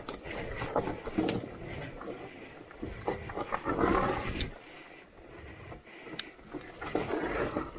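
Motorcycle engine revving in uneven bursts on a steep, rough off-road descent.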